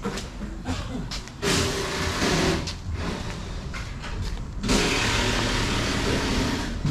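A 2017 Cadillac Escalade's 6.2-litre V8 running: a steady low hum, with two louder spells of rushing noise, one about a second and a half in and one near five seconds.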